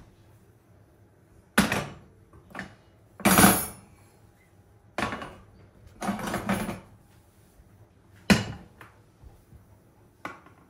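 Metal pan supports of a glass-topped gas hob being lifted and set back down, a series of about seven clattering knocks, some sharp and some longer. Near the end a lidded steel pot is set down on a burner.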